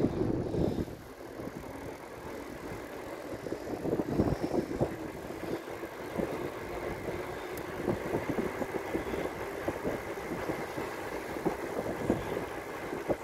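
Mountain bike rolling fast on asphalt: a steady rush of tyre noise and wind on the microphone.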